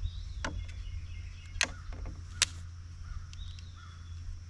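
Three sharp clicks as a Buck folding knife is handled and put to use, with faint bird chirps in the background.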